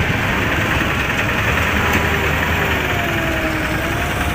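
Vehicle engine running steadily with a constant low drone and road noise, heard from on board while moving.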